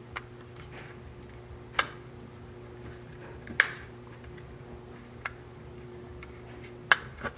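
Sharp plastic clicks and snaps, about five of them a second or two apart, as the plastic body shell of a model diesel locomotive is worked loose from its frame. A steady low electrical hum runs underneath.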